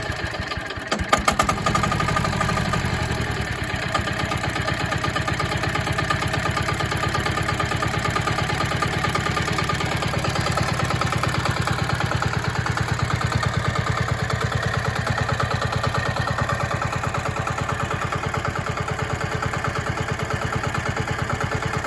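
Mini excavator engine running steadily with an even, rapid pulse, with a brief clatter of sharp knocks about a second in.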